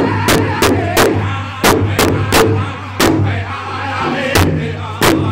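Northern-style powwow drum group: several men singing in high-pitched unison over a large hide-covered drum beaten in a steady pulse of about three strokes a second. The drumming stops about three seconds in and comes back over a second later while the singing carries on.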